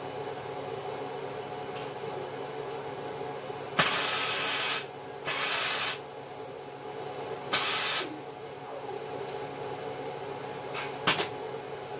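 Four short, sharp-edged bursts of hissing spray, each about a second long, over a steady background hum.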